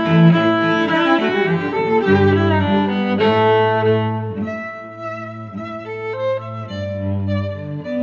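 Background music played on bowed strings, violin over cello, with held notes; it softens about halfway through.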